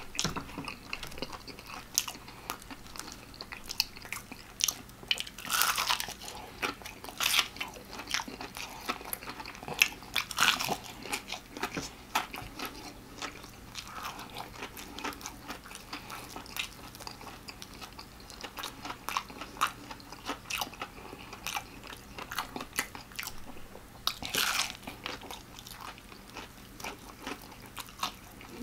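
Close-up chewing and biting of extra-crispy fried chicken: a run of irregular crisp crunches and crackles from the breading, with a few louder bites now and then.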